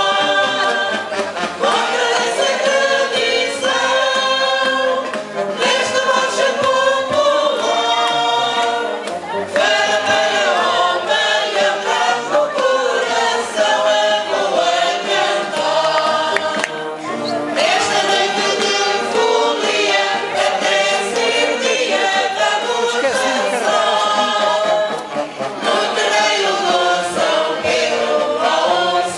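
A large mixed group singing a Portuguese marcha popular song together with musical accompaniment, in phrases with short breaks between them.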